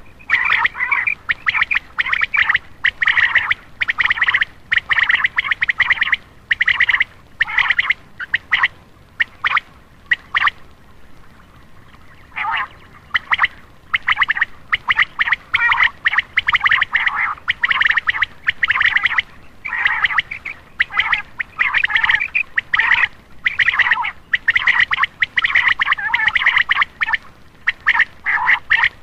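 Common quail calling: short, fast-pulsed notes repeated in quick runs, almost without a break, with one pause of a second or two about ten seconds in.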